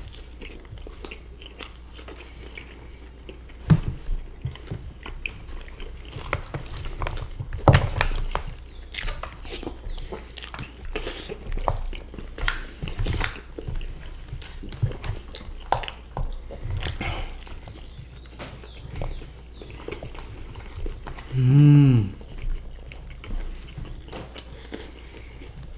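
Close-miked chewing and biting of fries with bacon and cheese and breaded parmigiana, with irregular wet crunches and clicks, some of them fork and wooden spoon in foil trays. There is a short voiced hum a little past the 21-second mark.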